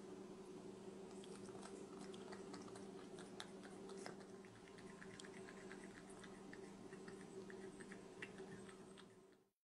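Faint small clicks of a cat licking and chewing food off a spoon, scattered irregularly over a steady low electrical hum. The sound fades out near the end.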